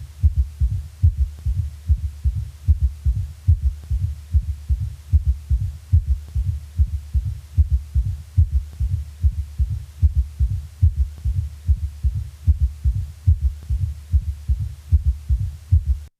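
Heart sounds in a quadruple rhythm: all four heart sounds, the first and second plus a third and a fourth, beat in a repeating four-sound cadence at a normal heart rate. Each beat is a soft, low thud, and the pattern repeats evenly throughout.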